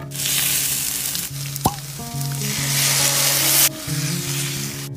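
Sliced onions sizzling in a hot stainless steel frying pan, with a short sharp click about one and a half seconds in. The sizzle cuts off suddenly about three and a half seconds in, over background music.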